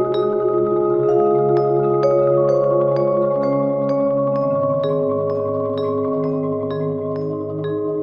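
Four marimbas playing a slow, sustained chordal passage, the low parts rolled into held tones while a higher line is struck about twice a second. The chords change every second or two.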